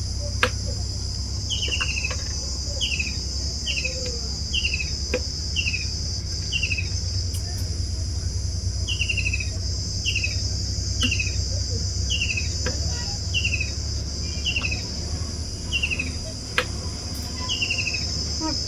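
A bird repeating a short chirp that falls in pitch, roughly one or two a second with pauses, over a steady high-pitched insect drone and a low steady hum. A few sharp clicks.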